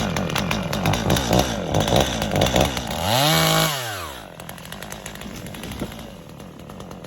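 Two-stroke chainsaw running hard through a cut, its pitch wavering under load, then revving up to a high whine a little past the middle and dropping back to a lower, steadier run for the rest.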